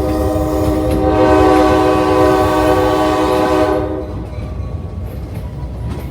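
Locomotive horn sounding one long, loud blast, a chord of several steady tones that cuts off about four seconds in. Under it and after it is the steady rumble of the passenger train rolling on the track.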